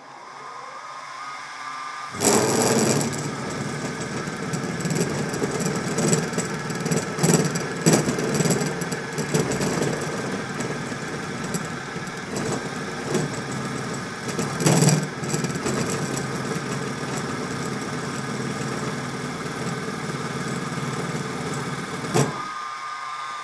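Small benchtop milling machine (Sieg mini mill) with its spindle motor whining while an end mill cuts a pocket in a metal block. From about two seconds in the cutting is a dense rasping chatter with sharp louder cracks now and then. It stops about a second before the end, leaving the spindle whine alone.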